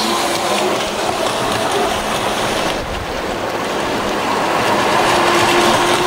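Rushing river rapids, with the electric water-jet drive of a radio-controlled Thrasher jet boat whining underneath, its pitch wavering as the throttle is feathered.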